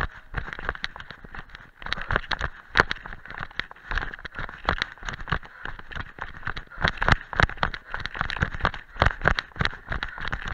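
Quick, uneven footfalls of a runner going downhill on a rocky dirt path covered in dry leaves: each stride lands with a thud and a crunch of leaves and gravel. The steps are picked up close through a chest-harness camera that jolts with every stride.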